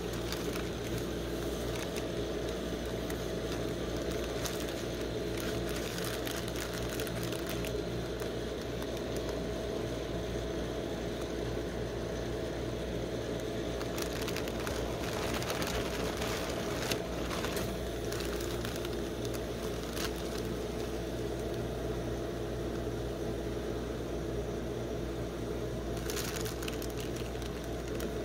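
Foil snack bags of Cheetos popcorn crinkling and rustling in several spells as they are opened and popcorn is scooped out by hand. Under it, a steady low machine hum from the rolled-ice-cream machine's refrigerated cold plate.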